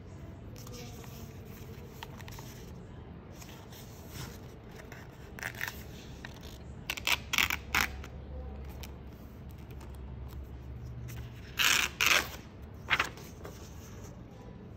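Pages of a Maruman Mnemosyne twin-ring notebook being handled and turned: a few short papery rustles and scrapes against the wire binding, in a cluster about seven seconds in and the loudest about twelve seconds in, over a faint low hum.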